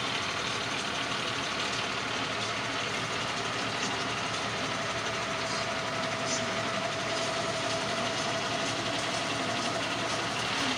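Concrete mixer truck's diesel engine running steadily, a dense even mechanical noise. A thin steady whine joins it about halfway through and lasts almost to the end.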